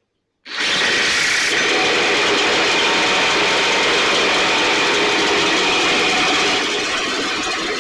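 Stihl backpack blower's two-stroke engine being spun over with a powered starter tool: a loud, steady mechanical whirr that starts abruptly about half a second in and eases off slightly near the end.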